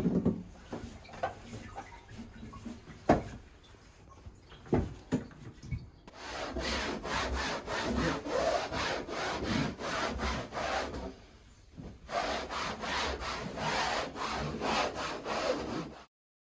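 Hand saw cutting in continuous back-and-forth strokes, rising and falling in level, starting about six seconds in after a few scattered knocks, with a short pause midway; it stops abruptly near the end.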